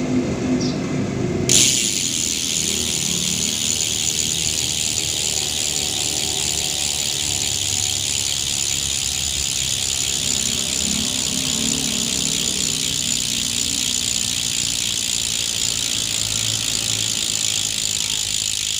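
Rear freehub of an Aeroic Arc 50 wheelset buzzing as the wheel spins freely: a steady, high-pitched whirr that starts suddenly about a second and a half in and holds unchanged.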